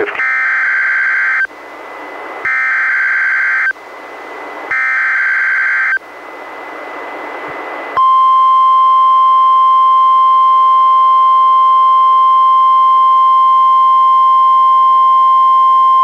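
NOAA Weather Radio EAS alert over a weather radio: three buzzy, warbling SAME header data bursts, each about a second and a half long, separated by short gaps of radio hiss. About eight seconds in, the steady single-pitched 1050 Hz warning alarm tone begins and holds, announcing a new Special Marine Warning.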